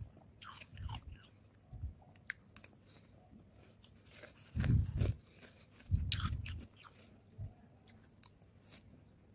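Powdery freezer frost being chewed close to the microphone, crunching in short bursts, the two loudest a little past halfway through, with a few light clicks between them.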